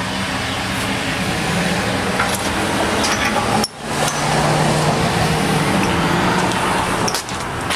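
Tractor engine running steadily, with a brief break a little before halfway.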